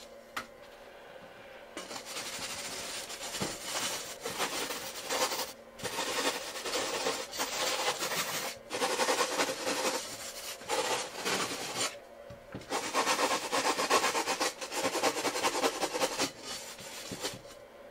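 Sanding block rasping back and forth along the cut edge and corners of a glass pane in repeated strokes, rounding over the sharp edge. It starts about two seconds in, with a few short pauses, the longest around twelve seconds in.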